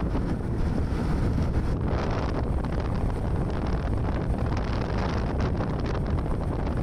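Steady wind noise rushing over the microphone of a moving scooter at about 45 km/h, with road and running noise underneath.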